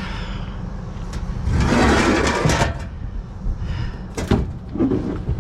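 A heavy box scraping as it is slid into place for about a second, with a few sharp knocks before and after.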